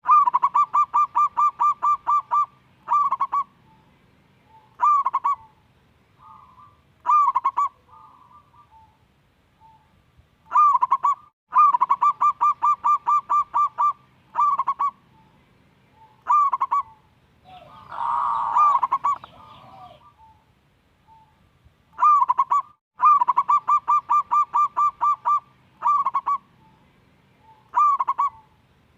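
Zebra dove (perkutut) singing: three phrases about ten seconds apart, each a quick run of staccato cooing notes followed by a few spaced single notes. A shorter, rougher and noisier call comes a little past the middle.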